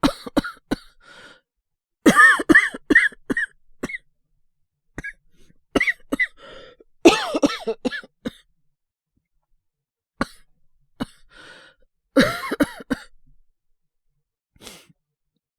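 A voice actor performing a young man's coughing fits from a cold: about six bouts of short, harsh coughs in quick succession, with short silent pauses between them.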